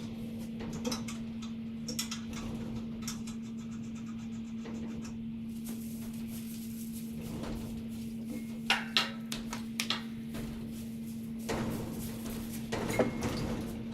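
Scattered knocks and clicks over a steady hum, a few sharper knocks about two-thirds of the way through and near the end.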